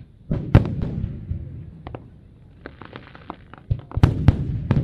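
Aerial fireworks shells bursting: heavy bangs about half a second in and again near four seconds, with a quick run of crackling pops in between.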